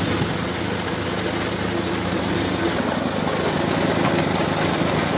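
Tomato sorting machine running with a steady mechanical drone from its motor and rollers.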